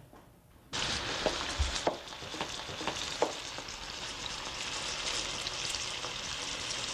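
A piece of steak frying in an open pan: a steady sizzle that starts abruptly under a second in, with a few light knocks of kitchen work in its first seconds.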